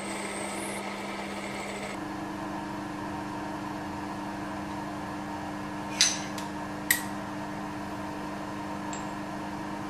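Milling machine running with a steady hum, its tone shifting about two seconds in. Past the middle, two sharp metallic clicks a little under a second apart as the steel shaft and its feather key are handled.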